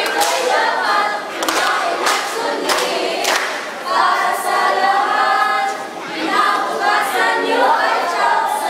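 A group of young teenagers singing together in chorus. Several sharp hits sound through the singing, most of them in the first few seconds.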